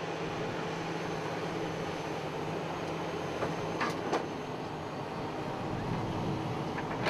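Diesel engine of a Hitachi tracked excavator running steadily as it digs, with two sharp knocks about four seconds in.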